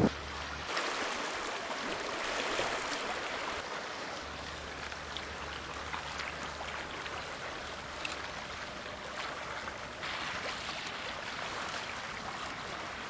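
Running water: a steady, even rushing sound like a stream, with a few faint ticks.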